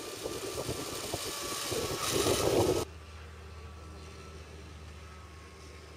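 Wind buffeting the camera microphone of a rider speeding down a long zipline, a rough fluttering rush that grows louder. About three seconds in it cuts off suddenly to a faint, steady low hum.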